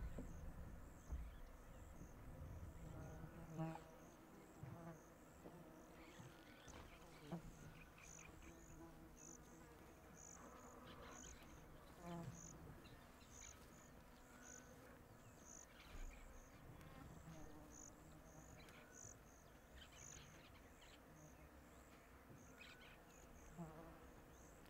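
Faint insect chirping, a short high-pitched pulse repeating about twice a second, over otherwise near-silent bush ambience.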